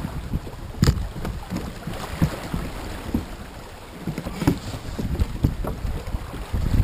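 Canoe running down a shallow riffle: river water rushing and splashing along the hull, with wind buffeting the microphone. Irregular sharp knocks, the clearest about a second in.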